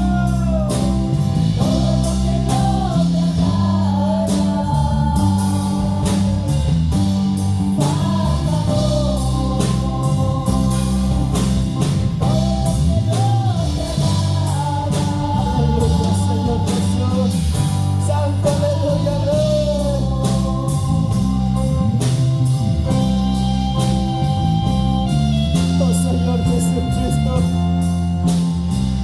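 Live church worship band playing a slow song, with sustained low chords and a wavering melody line above them.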